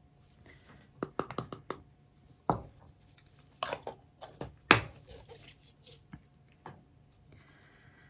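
Paint cups and a small plastic spoon being handled and set down on a work table: a quick cluster of light clicks about a second in, then scattered single knocks, the loudest just before the middle.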